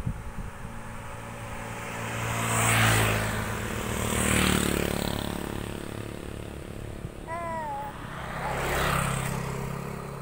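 Small motorcycles pass one after another on an asphalt road, three times, each engine swelling and fading as it goes by. About seven seconds in comes a short wavering call.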